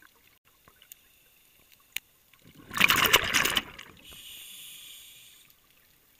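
Scuba diver breathing through a regulator underwater. A loud burst of exhaled bubbles starts about two and a half seconds in and lasts about a second. It is followed by the softer hiss of an inhalation through the regulator.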